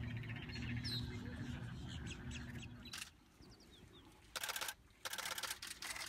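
Digital SLR camera shutter firing in rapid bursts: a single click about halfway, then a short burst and a longer one near the end. Under it a steady low hum and scattered bird chirps.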